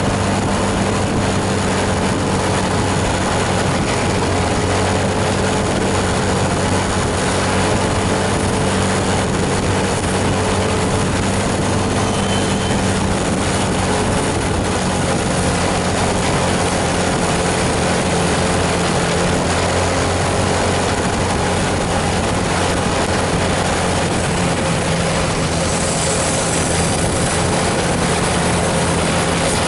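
Intercity coach bus diesel engine running steadily under load, with a steady hiss over it. The engine note shifts slightly about fifteen seconds in and again near the end.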